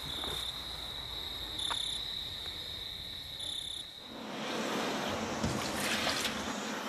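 Crickets trilling steadily until about four seconds in, when they cut off and give way to a rising hiss of salt and then water being poured into a basin.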